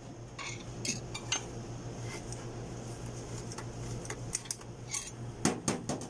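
Sharp metal clicks and clinks of an espresso portafilter being filled with ground coffee at a Nuova Simonelli doser grinder, scattered through, with a louder cluster near the end. A steady low hum runs underneath.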